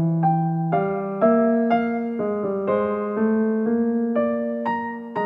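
Background music: a keyboard melody of struck, sustained notes, a new note about every half second.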